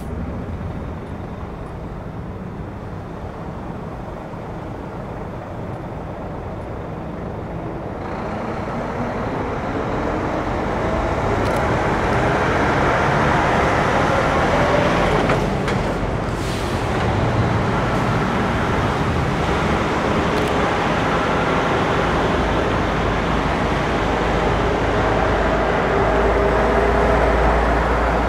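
Heavy-haul tractor-trailer and its convoy approaching: diesel engine and road noise build from about eight seconds in, with a deep engine rumble growing louder near the end as the low-loader carrying a Shinkansen car comes past.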